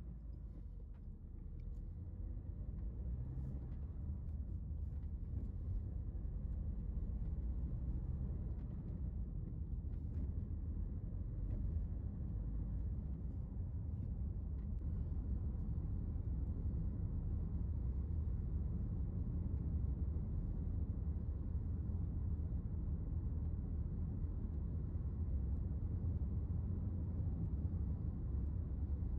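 Car driving on an open road, heard from inside the cabin: a steady low rumble of engine and tyres that grows louder over the first several seconds, then holds even.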